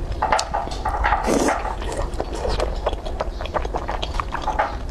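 Close-miked mouth sounds of eating thick, chewy starch noodles (fen haozi) in chili oil: wet, irregular chewing smacks and squelches, with a longer slurp-like stretch just over a second in.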